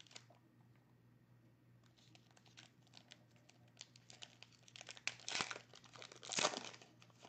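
Trading card pack wrapper crinkling and tearing as it is opened by hand. The sound is faint, starts about two seconds in, and has two louder crackles near the end.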